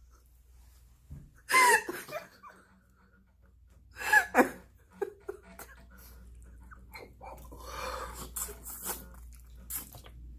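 A woman's breathy non-speech vocal sounds: two short, loud bursts with a bending pitch, about one and a half and four seconds in. Softer mouth noises follow near the end.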